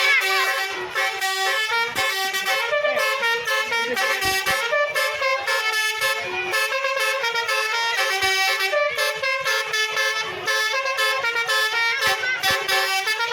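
Basuri multi-tone telolet air horn on the Winspector bus playing a continuous melody. Several steady horn notes sound together and step from pitch to pitch like a tune.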